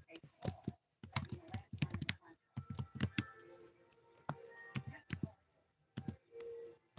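Typing on a keyboard: quick irregular key clicks in bursts, with short pauses between them.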